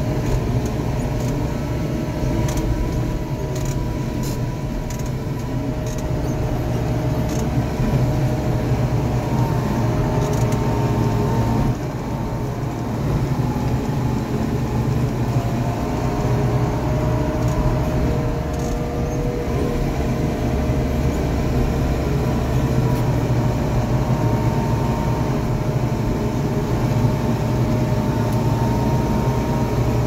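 White 145 tractor's diesel engine running steadily while driving, heard from inside the cab, with a steady whine over its low drone. A few light rattles come in the first several seconds.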